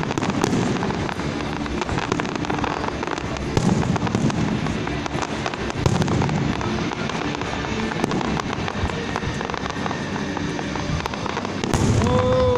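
Aerial fireworks display: a dense, continuous run of crackles and bangs from shells bursting overhead, with music playing underneath. Near the end a brief pitched call rises and falls over the bursts.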